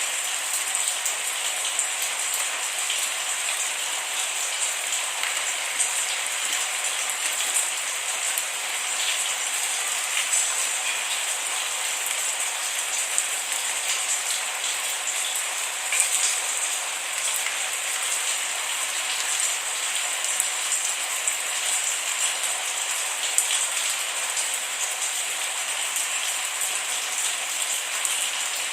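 Steady rain with no thunder, many small drops pattering on a surface.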